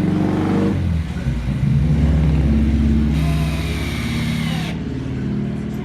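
A motor running loud and steady, its pitch shifting about a second in, then easing off toward the end.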